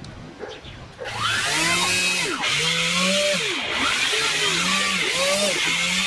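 Twin electric propeller motors of a homemade RC air boat spin up about a second in, then rev up and down several times with the throttle: a motor hum whose pitch rises and falls, over a steady propeller hiss.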